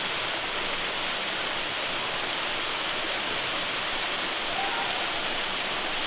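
Mountain stream rushing steadily over rocks, a continuous even wash of running water.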